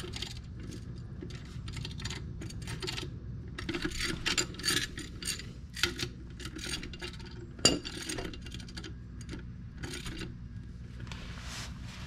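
Half-inch socket ratchet clicking in irregular runs as the lug bolts of a BMW K1600's rear wheel are loosened and spun out, with one sharp, louder metallic click about two-thirds of the way through.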